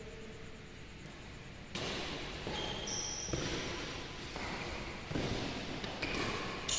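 Badminton play on an indoor court: several sharp racket strikes on the shuttlecock ringing in the hall, with short high squeaks of shoes on the court floor.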